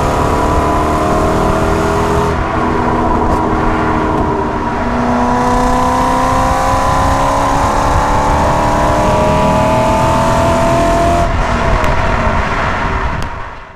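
Car engine and exhaust under acceleration, pulling through the gears: the pitch rises slowly, drops at a gear change about eleven seconds in, and the sound cuts off suddenly at the end. The exhaust note comes through a GoPro's microphone.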